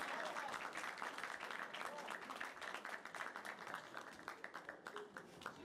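Spectators clapping for a point just awarded in a kendo match, the applause thinning out and fading away over the few seconds.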